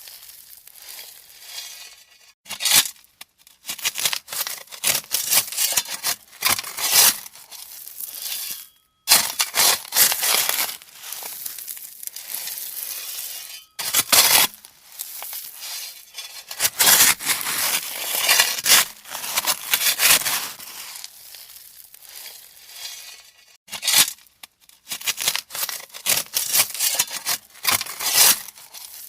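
Shovel scooping and scraping through gravel: repeated crunching scoops at irregular intervals, each lasting a second or two, with short pauses between them.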